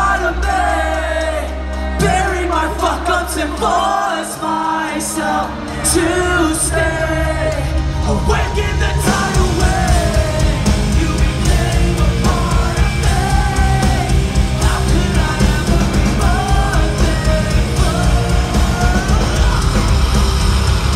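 Live rock band with a singer: vocals over a sparser backing at first, then about nine seconds in the full band comes in loud, with drums and distorted guitars.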